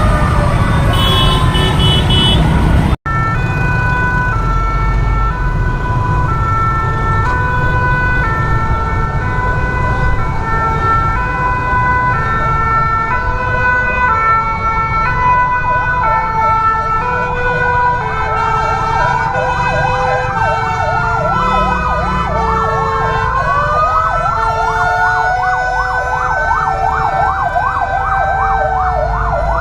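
Emergency vehicle sirens. First one siren glides down in pitch; after a sudden cut, an ambulance's two-note hi-lo siren alternates steadily. About halfway it is joined by fire-engine sirens wailing up and down, and near the end by a fast warbling siren, over a low rumble of vehicle engines.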